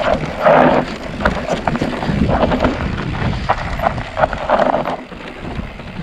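Mountain bike riding down a rough, loose trail: tyres clattering over dirt and stones, bike parts rattling, with wind buffeting the microphone.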